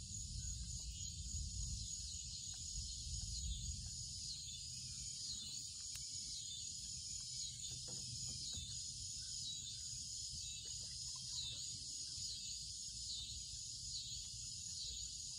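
Insects droning, a steady high-pitched chorus that swells and fades about once a second, with a low steady rumble underneath.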